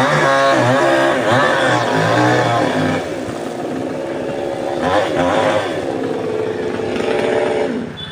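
Small petrol engine running and revving, its pitch rising and falling for the first few seconds, then running steadier and a little quieter before fading near the end.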